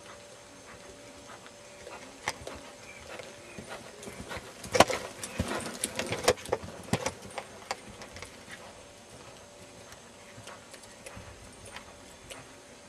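Hoofbeats of an Oldenburg gelding cantering on arena sand, scattered soft ticks, with a dense burst of loud knocks and rattles about five seconds in that lasts a couple of seconds.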